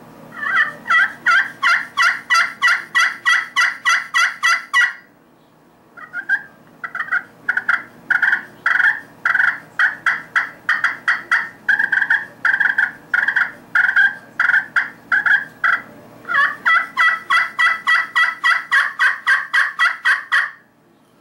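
Slate side of an Empire Game Calls Rapid Fire friction pot call, worked with a wooden striker to imitate a hen turkey. Three runs of short calls at about three or four a second; the first stops about five seconds in, and the last starts around sixteen seconds.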